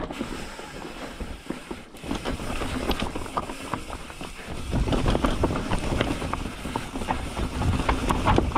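Mountain bike rattling and clattering down a rocky trail: many quick knocks and clicks as the tyres and frame go over rock ledges, over a low rolling rumble that grows louder about halfway through.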